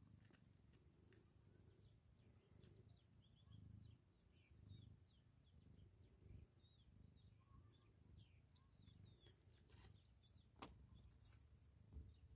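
Near silence, with faint short high chirps through the middle and a few soft clicks.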